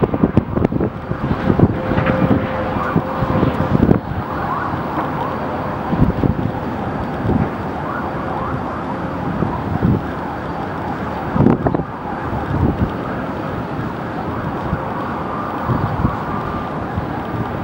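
Wind gusting and buffeting the microphone, with a faint steady tone running underneath for several seconds, like a distant siren.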